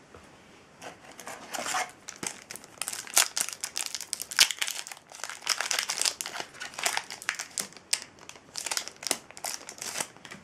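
Foil Yu-Gi-Oh booster pack crinkling as it is handled and torn open, a dense run of sharp crackles starting about a second in.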